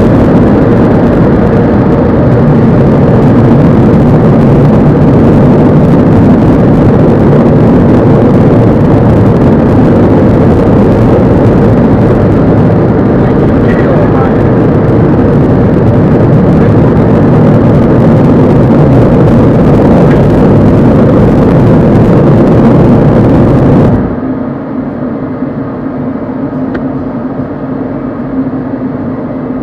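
Car-wash air dryer blowers blasting, loud and steady, heard from inside the car. The blast drops off suddenly about 24 seconds in, leaving a quieter steady hum.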